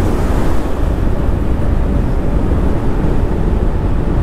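Yamaha Aerox 155 scooter's single-cylinder engine running at riding speed under a steady rush of wind and road rumble on the camera's microphone, with a louder gust at the very start.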